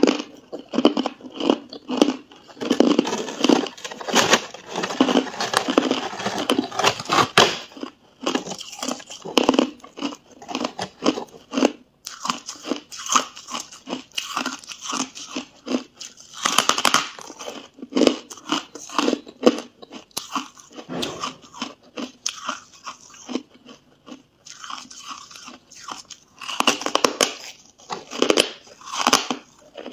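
Hard frost-coated ice bitten and chewed, giving many sharp, rapid crunches in runs with short quieter gaps. There is a long dense run in the first several seconds, another around the middle and more near the end.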